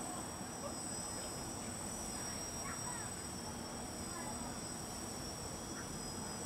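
F450 quadcopter's brushless motors and propellers buzzing in flight: a steady high whine over a continuous hum.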